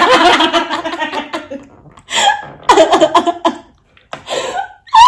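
Women laughing in several short, breathy bursts with brief gaps between them.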